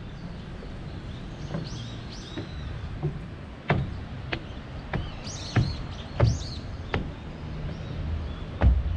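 Small birds chirping in short high calls, and from about a third of the way in, footsteps at a walking pace, roughly one every two-thirds of a second, over a low steady background rumble.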